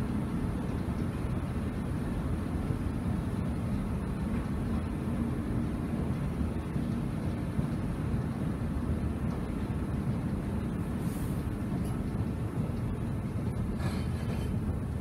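Escalator running steadily with a low rumble and hum while being ridden down. A few short clicks come near the end as it reaches the bottom landing.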